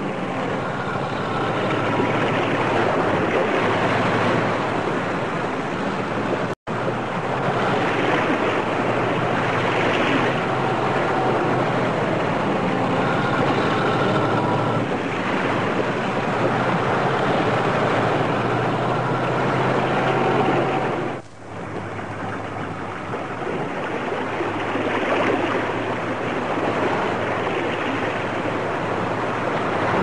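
ZIL-49061 amphibious 6x6's ZIL-130 V8 engine running with a steady drone under the rush and splash of water churned by its tyres and hull. The sound cuts out for an instant about six seconds in and dips briefly again about twenty-one seconds in.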